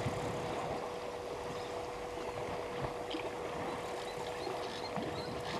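African elephants splashing and sloshing water as they wrestle and bathe in a waterhole, with a steady faint hum underneath.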